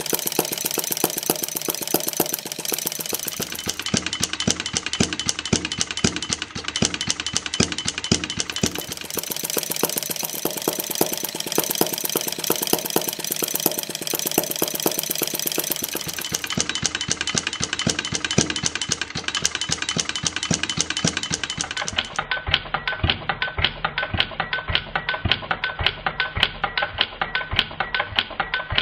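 Maier single-cylinder butane-fuelled model gas engine running, a rapid, even stream of sharp clicks and knocks from its firing strokes and moving parts.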